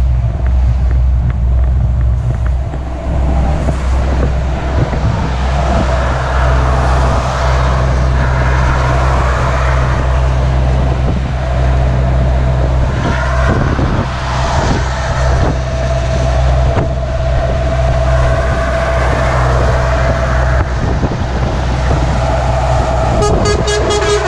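Truck engine running steadily while driving, heard from inside the cab, with a horn sounding several long toots between about 5 and 20 seconds in. Near the end a different, pulsing horn starts.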